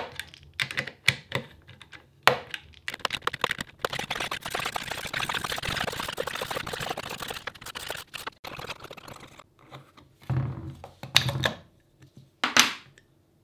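Ratcheting screwdriver with a socket bit clicking rapidly as it turns the nuts of a bolt-type bearing puller, drawing a bearing out of its bore. The clicking thins out after about nine seconds and gives way to a few low knocks and one sharp knock near the end.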